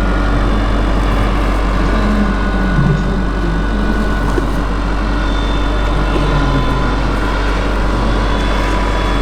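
Radio-controlled scale Bell 230 model helicopter in flight: steady rotor and motor noise with a thin whine that shifts slightly in pitch.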